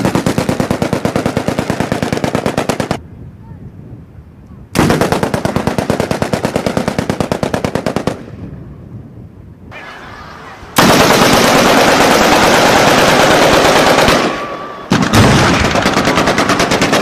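Machine-gun fire in four long, rapid bursts of about three seconds each, separated by short pauses; the third burst is the heaviest.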